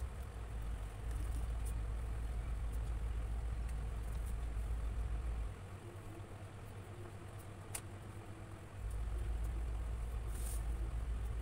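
A low steady hum that drops away for about three seconds midway, over faint scratching of pencils on drawing paper.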